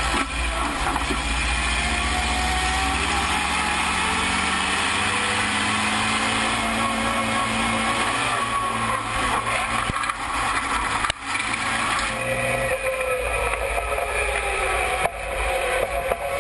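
Racing truck's turbo-diesel engine under hard acceleration and braking, its note slowly rising and falling, over steady rushing wind and tyre noise heard through a camera mounted low on the truck's front.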